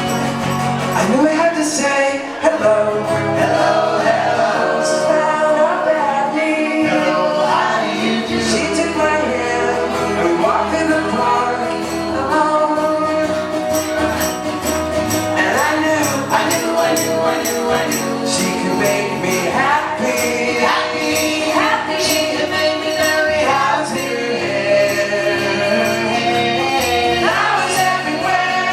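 Live pop band playing with blended group vocal harmonies over the band, and a tambourine keeping the beat.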